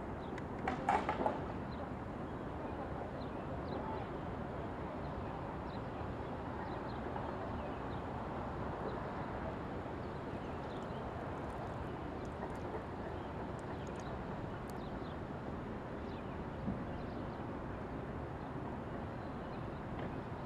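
Steady outdoor background noise, mostly a low rumble and hiss, with a short louder sound about a second in and a few faint brief high sounds scattered through.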